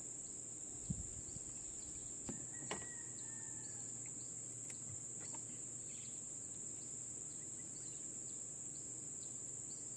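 Steady high-pitched drone of insects, crickets or cicadas, by the river, with a fainter chirp repeating about twice a second. A short soft thump comes about a second in.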